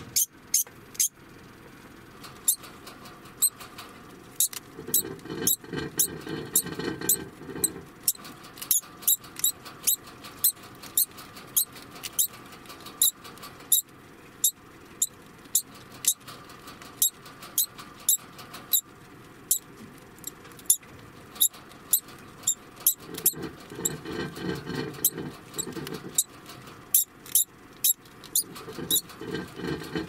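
Degu giving its alarm call: short, sharp, high-pitched calls repeated about once or twice a second, on and on. A low noise swells up underneath a few times.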